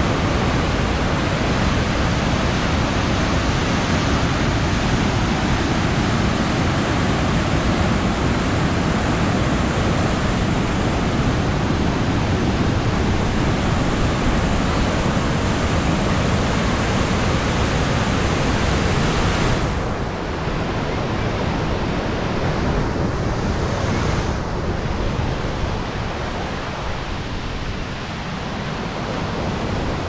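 The Waikato River at Huka Falls rushing as white water through a narrow volcanic rock ravine: a loud, steady rushing of water. About two-thirds of the way in it turns duller and a little quieter.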